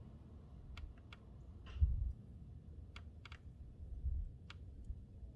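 Scattered light clicks and taps as sway bar link parts, rubber bushings and a metal sleeve, are handled and slid onto the link, with a couple of low bumps about two and four seconds in.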